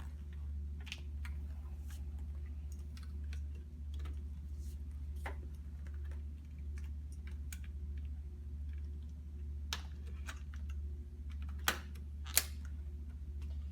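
Scattered light clicks and taps from handling IV equipment, over a steady low hum, with two sharper clicks near the end.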